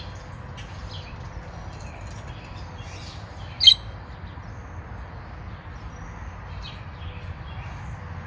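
Small birds chirping in short scattered calls, with one loud, sharp chirp about three and a half seconds in, over a steady low background rumble.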